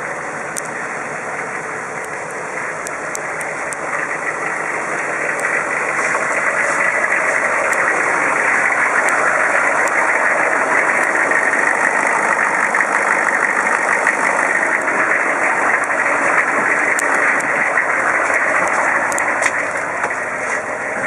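1998 GMC 3500 truck's engine idling steadily, growing louder about five to eight seconds in, with a few faint ticks.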